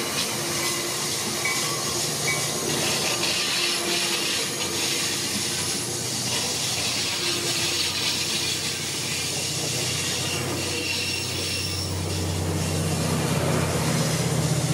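ACE commuter train's bilevel passenger cars rolling past at close range, wheels on the rails making a steady rushing noise. A diesel locomotive's low engine drone grows louder over the last few seconds as the locomotive comes alongside.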